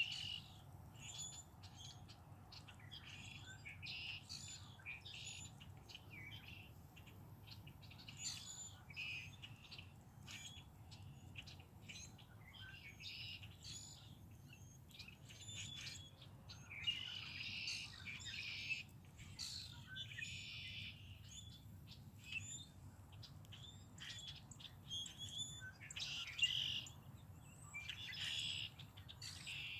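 Several songbirds chirping and singing, many short overlapping chirps and trills throughout, over a faint steady low rumble.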